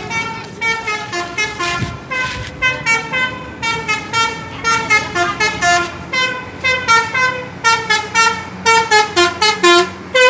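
Bus's multi-trumpet basuri 'telolet' air horn playing a fast melody of short, stepped notes, with a steady low engine hum beneath it in the second half.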